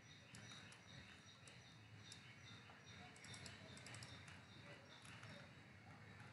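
Near silence with faint computer keyboard and mouse clicks, some in quick clusters of several, over a faint low background hum.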